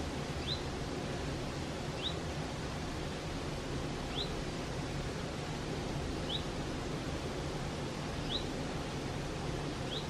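Mountain stream flowing with a steady, even rush of water. Over it, a bird gives a short, high rising call about every two seconds.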